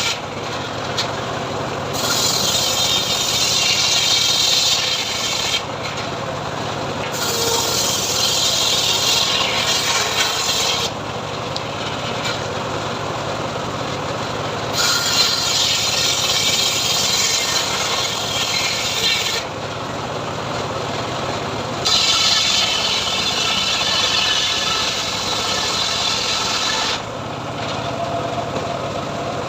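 Homemade band sawmill sawing sengon timber. The blade's hiss in the wood comes in four stretches of a few seconds each, over a motor that runs steadily throughout.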